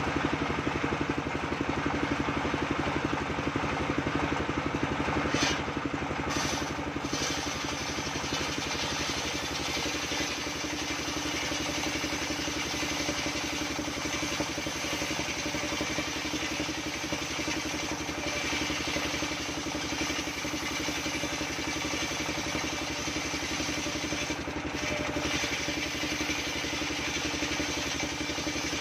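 Engine-driven circular sawmill running steadily, its blade ripping coconut wood into beams; the machine sound is continuous and even throughout.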